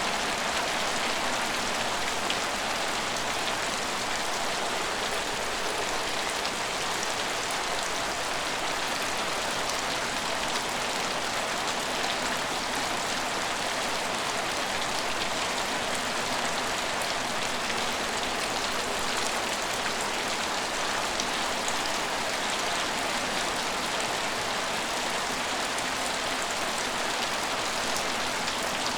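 Steady rain falling and pattering on hard surfaces, an even hiss with fine drop ticks and no change in strength.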